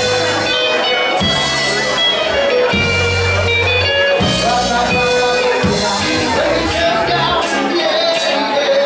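Live band playing: electric guitars, bass guitar and drum kit, with a singer's voice over the top and cymbal hits coming thicker in the second half.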